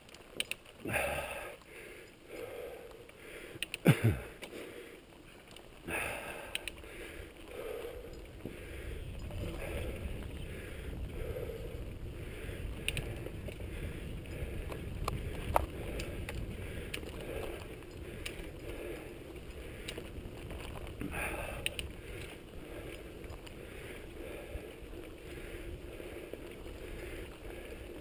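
Mountain bike ridden along a dirt singletrack, heard from a camera on the bike or rider. Tyres roll and the bike rattles, with a few sharp knocks from bumps in the first six seconds, the loudest about four seconds in. From about nine seconds in, a steady low rumble of the ride sets in.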